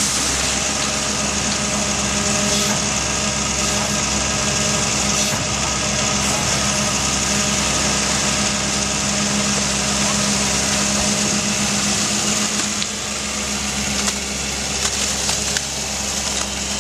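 Diesel engine of a Doosan amphibious excavator running steadily under load.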